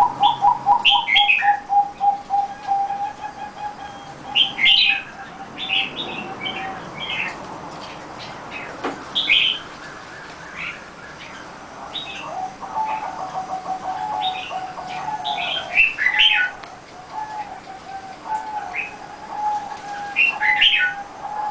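Zebra dove cooing: long runs of quick staccato coo notes, one run at the start that trails off after a few seconds and another starting about halfway through. Short sharp chirps of other small birds sound over it now and then.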